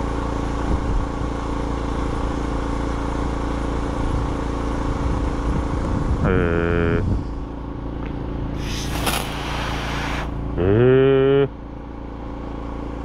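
An engine running steadily at a constant speed, with a brief hiss a little past the middle.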